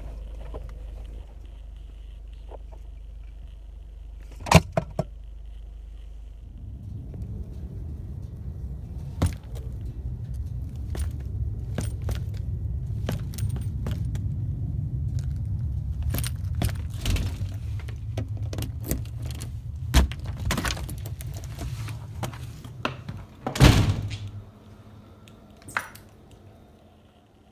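Keys jangling amid handling knocks and clicks, over a low steady rumble through most of the middle; a loud thud comes shortly before the end.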